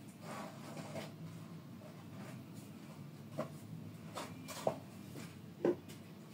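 Quiet room tone with faint scratchy rustling and three short soft clicks in the second half.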